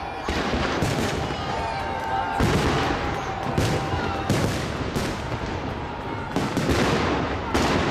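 Aerial fireworks shells bursting one after another in a large display: about nine sharp bangs at uneven intervals, each trailing off in echo.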